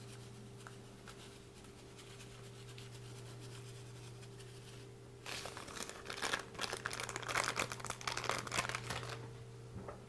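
Crinkling of a small plastic bag of dried rosemary being handled, a dense run of crackles lasting about four seconds, starting about halfway through. Before that only a faint steady hum.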